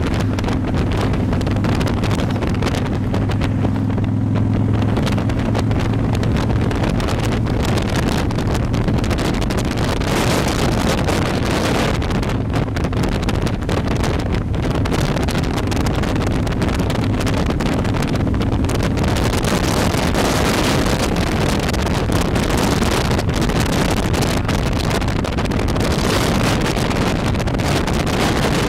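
Motorcycle engine running at a steady cruising speed under heavy wind noise on the microphone. The engine's low hum stands out most in the first few seconds, then is mostly covered by the wind rush.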